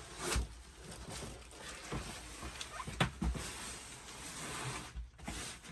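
Cardboard box and packaging being handled and pulled open: scattered knocks and rustling, with a sharper knock about three seconds in.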